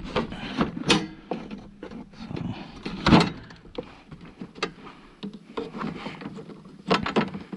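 Plastic body panels and fuel tank of a riding mower being handled and pushed into place: a string of hard plastic knocks, clicks and rattles, the loudest about three seconds in.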